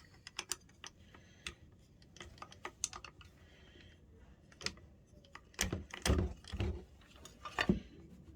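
Tools being handled at a workbench: irregular light clicks and taps, then a few heavier knocks from about five and a half seconds in.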